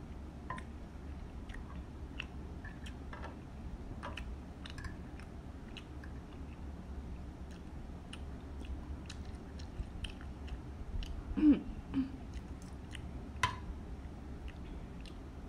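Close chewing of instant curry noodles, with small scattered clicks of a metal fork and spoon against a glass bowl. One louder brief sound about two-thirds of the way through.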